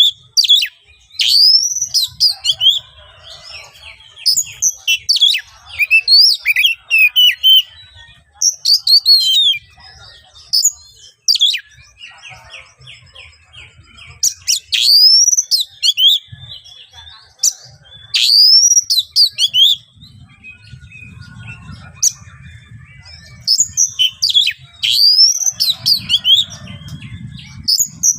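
Oriental magpie-robin (kacer) singing loud, harsh phrases of rising, curling whistles in bursts of a second or more with short pauses, with a rapid stuttering run of notes about halfway through. It is an aggressive song of the kind used to provoke a rival male.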